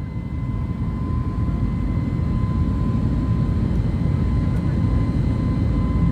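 Steady low rumble of an airliner in flight heard inside the cabin, with a faint thin whine held on one pitch; it swells up over the first second or two, then holds steady.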